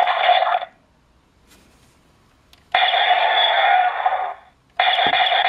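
Electronic sound effects from the DX Gaburevolver toy gun's small built-in speaker, thin and tinny. The power-on sound stops less than a second in. After a pause of about two seconds come two more bursts for the basic attack mode, the second starting with a brief click.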